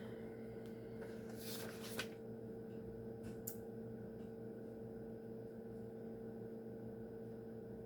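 A steady low electrical hum, with a brief rustle and click about two seconds in and another short click about three and a half seconds in.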